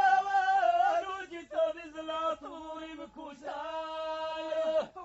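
A man's voice chanting Amazigh verse unaccompanied, in long held notes that waver slightly in pitch, with a long sustained note near the end.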